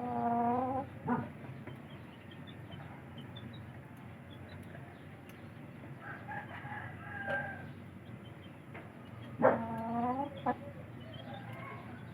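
Rooster crowing twice, about nine seconds apart, each crow short, with fainter chicken calls between and small birds chirping.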